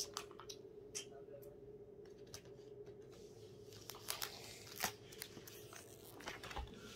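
Scissors snipping slowly through a stiff plastic blister pack: faint, scattered crackles and sharp clicks, a few louder snips about four and five seconds in, as the hard plastic resists the blades. A faint steady hum runs underneath.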